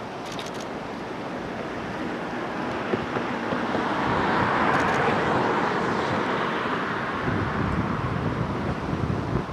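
Outdoor wind noise rumbling on the microphone, with a broad hiss that swells up and fades away over a few seconds in the middle.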